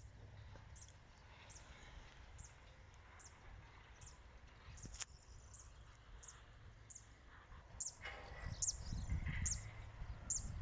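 Short high chirps, each falling slightly in pitch, repeating about one and a half times a second over a low steady rumble. Some louder scuffing noise comes in from about eight seconds in.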